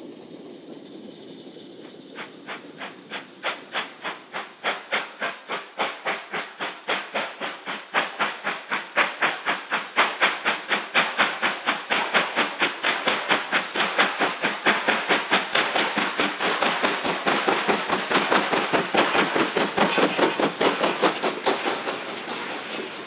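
British Railways Standard Class 9F 2-10-0 steam locomotive working hard, its single-chimney exhaust beating in a steady, even rhythm that grows louder as it approaches. A steady hiss comes first, before the beats start about two seconds in. Near the end the beats ease as the goods wagons rattle past.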